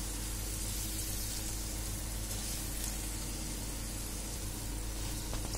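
Modaks deep-frying in hot oil in an iron kadhai on a low flame: a steady sizzle of bubbling oil.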